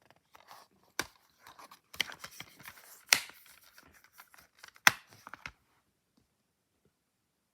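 DVD case and its packaging being handled: four sharp clicks with crinkling and rustling between them, stopping about two-thirds of the way through.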